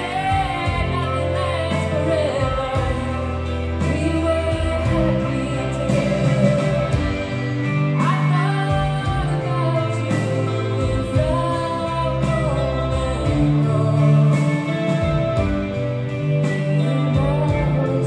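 Live rock band playing: a woman singing lead over electric guitars, keyboard and drums.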